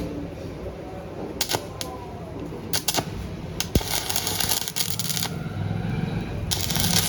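Sharp metallic clicks and taps from an electric rim lock and gate hardware being pressed and fixed in place, followed by two spells of quick metal rattling and rasping.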